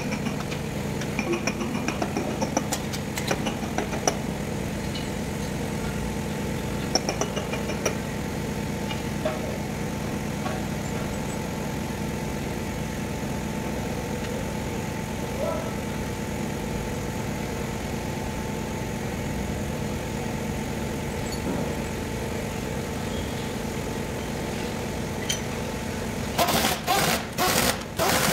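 A machine runs with a steady hum throughout, with light clinks of metal parts handled in the first several seconds. Near the end, a handheld power tool runs in several short, loud bursts.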